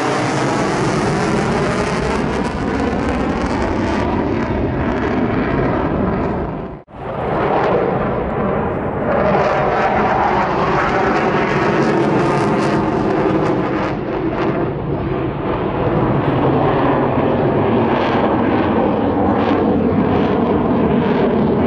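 Hornet fighter jet's engines running loud and continuous through a display pass, the pitch shifting as it manoeuvres. The sound cuts out for a moment about seven seconds in.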